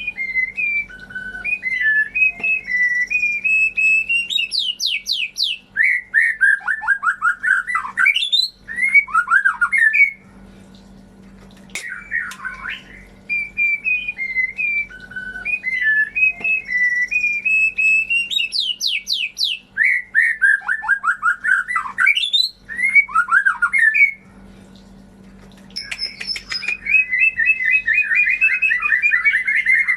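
White-rumped shama (murai batu) singing a varied song of clear whistled phrases, rapid trills and sweeping notes, with two short pauses, around 10 and 24 seconds in. A faint steady hum runs underneath.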